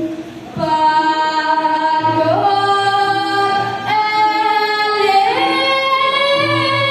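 A woman singing Balinese pupuh Ginanti, entering about half a second in with long held, ornamented notes that step up in pitch twice, over a low pulsing accompaniment.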